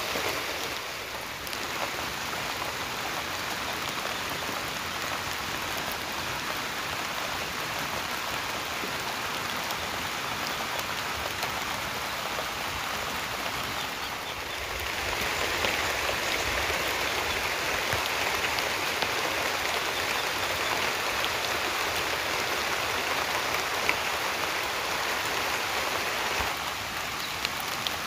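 Light drizzle falling steadily, an even hiss of raindrops. It grows louder and brighter about halfway through and eases back near the end.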